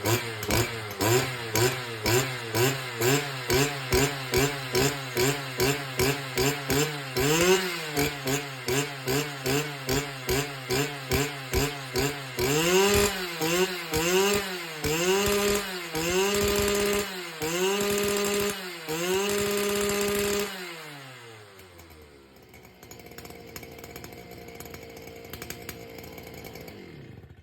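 Stihl FS 250 brush cutter's two-stroke engine being throttled: quick, even throttle blips about two a second, then longer revs of about a second each that rise to a high steady pitch. About twenty seconds in the revving stops, the engine note falls away and a much quieter steady hum is left.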